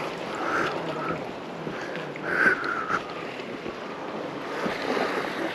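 Sea waves washing on the shore, a steady rushing wash mixed with wind on the microphone.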